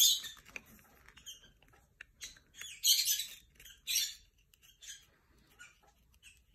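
Short, irregular crinkling and scratching as the foil inner seal and liner of a nail gel pot are pried up with a metal tool.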